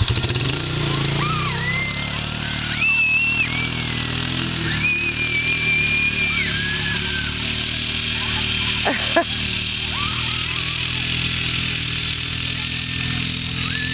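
Polaris Professional Series utility vehicle's engine pulling away and running on across the field as a steady low hum. Several long high-pitched cries sound over it.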